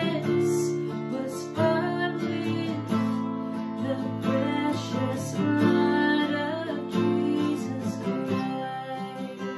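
A woman singing a slow worship song while strumming an acoustic guitar.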